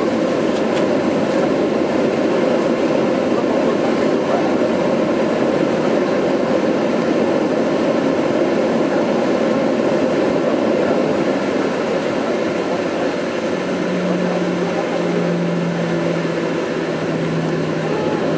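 Jet airliner cabin noise as the plane taxis, engines running at low power: a steady, dense rumble and rush. About two-thirds of the way in, a low steady hum joins it and then steps slightly lower.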